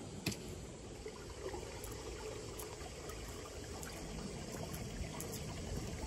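Water trickling and running steadily along a rice-paddy channel, with a few sharp ticks, the loudest just after the start.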